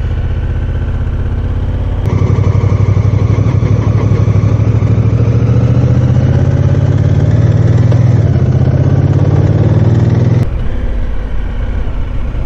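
Motorcycle engine running while being ridden. The sound jumps abruptly to a louder stretch about two seconds in and drops back near the end, and in that louder stretch the engine note rises slowly.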